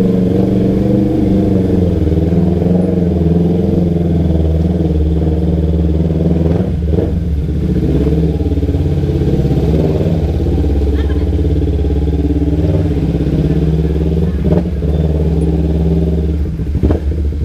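Kawasaki Ninja 250 Fi parallel-twin engine running at low revs while riding at walking pace, heard from on board the bike, its pitch rising and falling a little with small throttle changes.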